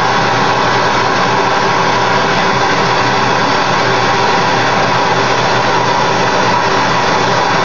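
Two gas torches burning at full flame into a crucible, a loud steady hiss, melting about 3 oz of silver for casting.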